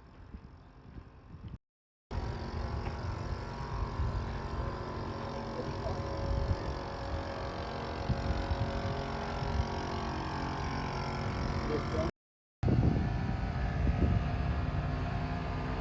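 Vehicle engine and road noise while driving: a steady low rumble with a constant engine hum. It is heard in three short clips, cut off by a brief dead silence twice.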